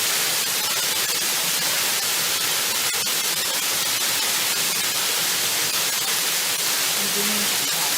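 Waterfall: falling water rushing and splashing in a steady, even hiss.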